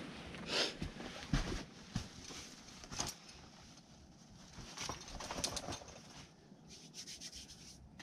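Irregular rustling and scuffing with scattered sharp knocks and clicks.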